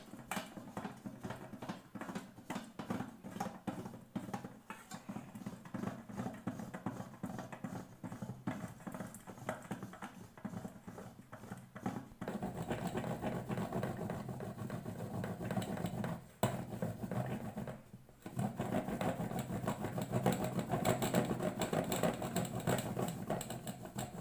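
Chocolate compound being grated on a perforated metal grater in a stainless steel bowl: fast, repeated rasping strokes, louder in the second half.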